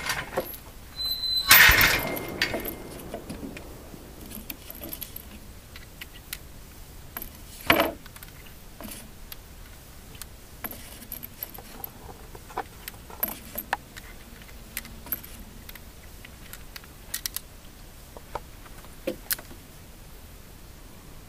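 Light metal clicks and clinks as a steel-frame Colt Detective Special revolver is handled, with two louder sharp bangs, one about two seconds in that rings out and fades, and one about eight seconds in.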